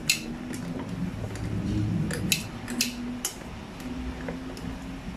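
Metal tongs clinking against a stainless steel pot as a baby feeding bottle is turned in boiling water for sterilizing. There are several sharp clicks, bunched together near the middle.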